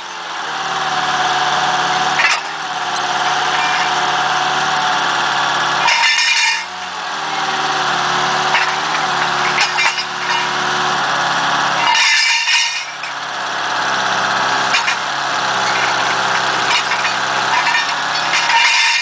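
A machine's engine running steadily, with loud clatters of steel railroad tie plates about every six seconds, three in all, as the lifting magnet picks them up and lets them go.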